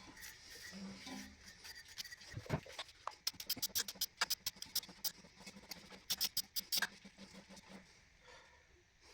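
A run of light, sharp clicks and taps with some scraping, coming thick and fast from about three seconds in and thinning out near the end: small hard parts being handled.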